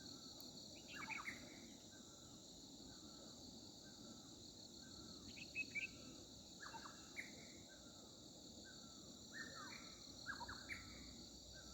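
Faint, steady high-pitched insect chorus with birds calling over it: many short chirps and quick down-slurred notes, scattered irregularly throughout.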